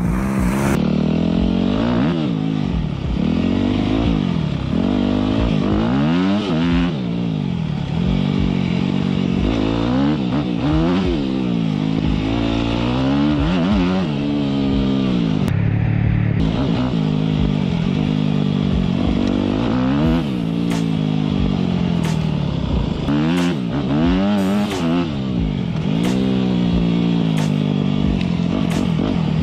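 Single-cylinder four-stroke engine of a 2009 Yamaha YZ250F dirt bike, with an FMF Megabomb header and Powercore 4 titanium silencer and the spark arrestor removed, revving up and dropping back again and again as it is ridden hard through the gears. Sharp clatters and knocks come in over the engine in the last third.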